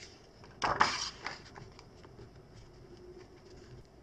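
A page of a paper picture book being turned: one short papery swish about half a second in, followed by a few faint rustles.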